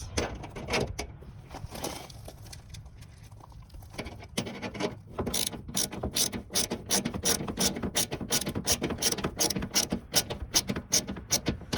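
Hand ratchet with a 10 mm socket clicking as it tightens a fastener. A few scattered clicks and handling noises come first, then about four seconds in an even run of quick clicks, three to four a second.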